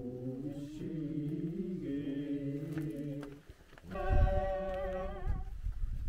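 Buddhist monks' chanting: low male voices intoning a mantra, breaking off about three and a half seconds in. It is followed by a higher, wavering voice over a low thump.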